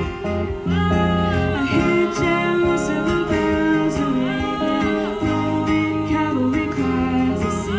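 Live guitar-and-vocal duo: a woman singing a sustained melody over electric and acoustic guitar, amplified through small PA speakers.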